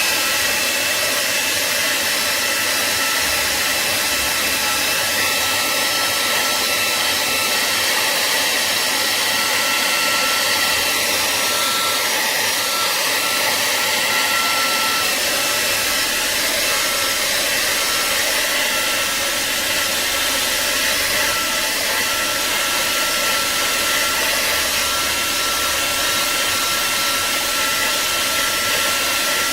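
Hair dryer running steadily: a constant rush of blown air with a thin whine on top. It is being used to warm the phone so its glued back cover can be opened.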